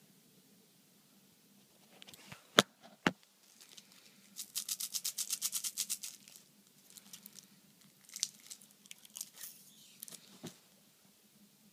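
Close handling noise: two sharp knocks, then a rapid run of small clicks, about ten a second for nearly two seconds, followed by scattered softer clicks and crinkles.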